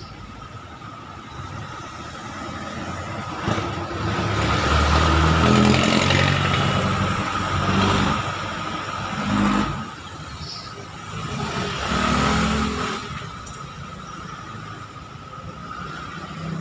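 Washing machine motor running in repeated spells that swell up and die away, as the machine is test-run after its motor wiring was repaired.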